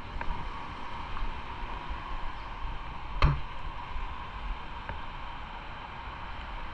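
Steady hiss and low rumble of wind and wet-road noise on a motorcycle rider's camera microphone, with one sharp tap about three seconds in.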